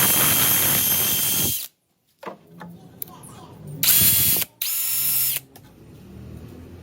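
Electric power drill running in bursts, with a steady motor whine over the noise. One run cuts off about a second and a half in, then two short runs follow near the middle.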